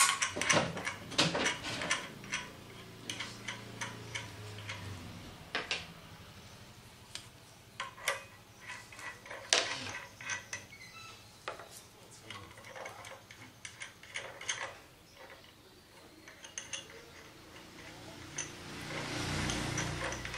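Scattered clicks and knocks from a manual die-cutting roller press being handled, as its metal frame and parts are gripped and a wooden cutting die and plastic cutting board are slid and set on the press bed. A low rumble swells near the end.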